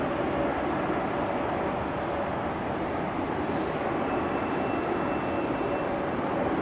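Jet noise from a Boeing 747-8's four GEnx turbofans as the airliner climbs away after takeoff: a steady, even rumble.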